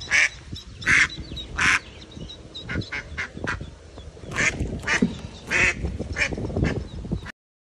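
Mother duck quacking repeatedly in short, harsh calls about a second apart, alarmed at her ducklings trapped in the paddleboat, over low knocking and rustling. The sound cuts off suddenly near the end.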